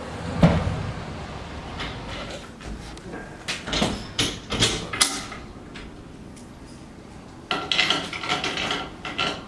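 Steel shelter frame knocking into place with one thump, then metal fixings clicking and clinking against the coated mild-steel frame as they are fitted by hand, with a busier stretch of rattling near the end.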